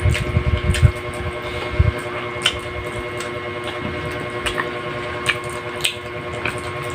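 Close-up eating sounds from a meal eaten by hand: chewing, with scattered short wet lip smacks and mouth clicks, over a steady hum. Low rumbling thumps come in the first two seconds.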